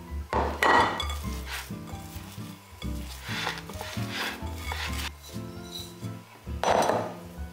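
Hands mixing mashed purple potato and flour in a glass bowl: rubbing and squishing with knocks against the glass, loudest about a second in and again near the end. Background music plays underneath.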